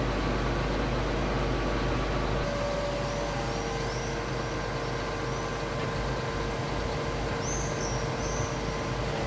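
Lorry-mounted hydraulic crane running steadily while lifting a shipping container, a level whine over its engine; the sound shifts a little about two and a half seconds in. Birds chirp a few times in the background.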